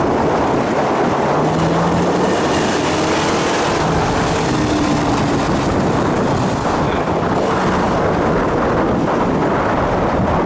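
A car engine running steadily, with wind buffeting the microphone.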